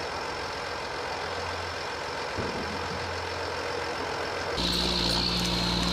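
Tractor engine running steadily. A little over four and a half seconds in, the sound steps up suddenly: louder, with a stronger low hum and a high whine on top.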